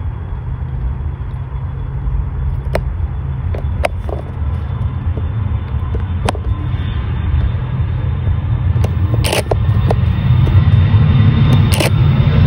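Jet engines of a twin-engine regional jet rumbling deep and growing steadily louder as the aircraft accelerates down the runway on its takeoff roll. A faint high whine sits above the rumble, and several short crackles come near the end.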